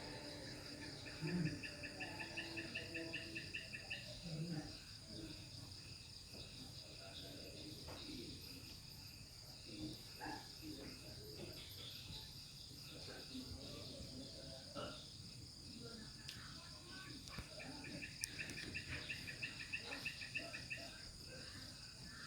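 Night crickets chirring steadily in a high even tone, joined twice by a lower, rapidly pulsed insect trill lasting a few seconds each time, with a few faint knocks.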